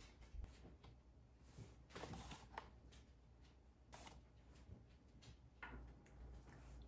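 Near silence with a few faint rustles and soft knocks as ingredients are handled over a mixing bowl, including a plastic bag of cornstarch.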